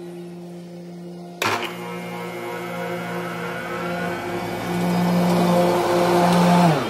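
EGO battery-electric zero-turn mower whirring as it drives closer, growing louder. There is a sharp click about a second and a half in. Near the end the whir's pitch drops and it falls away.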